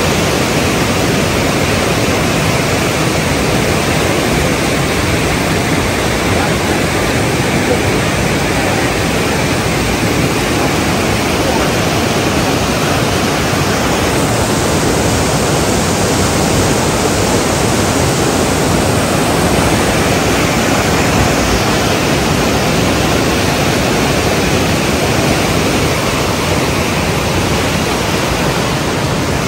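Fast river water rushing and churning in standing waves just below a weir: a loud, steady whitewater rush.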